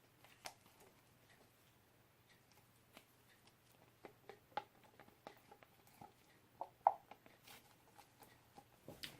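Faint, scattered light taps and clicks, with a few short squeaks, from a tool working and mixing poured resin on a sculpture.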